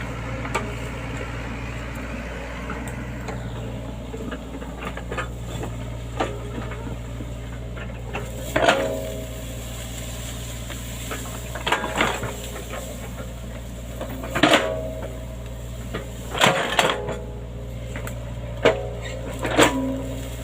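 Excavator diesel engine running steadily, with sharp metallic clanks and knocks every second or two in the second half as the machine works.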